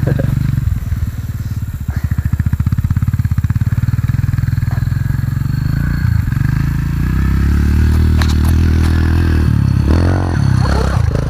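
Dirt bike engine running with a fast, even pulse, then revving higher as the bike rides through a dirt corner toward the listener, its pitch dipping and climbing again near the end.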